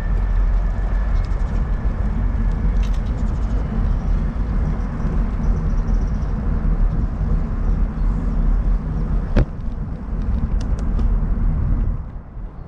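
Steady low rumble of wind buffeting the microphone while the bicycle rides along, with one sharp click about nine seconds in; it drops quieter near the end.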